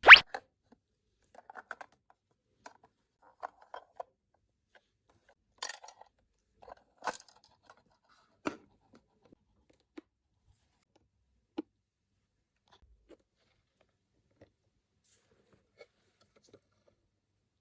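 Scattered small clicks and taps of miniature plastic toys and their packaging being handled, with a sharp click at the start and a few clusters of light taps about six to nine seconds in.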